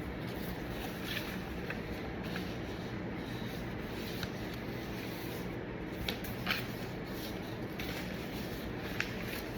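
Steady low background hum with a few scattered light clicks and ticks.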